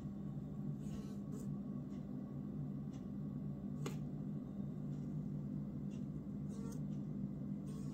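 A steady low hum, with a few light rustles and ticks as a mesh pop-up enclosure holding honeybees is handled.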